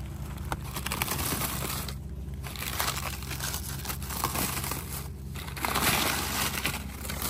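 Close, dense crackling and crumpling rustle made of many small clicks, with brief lulls about two, five and seven seconds in.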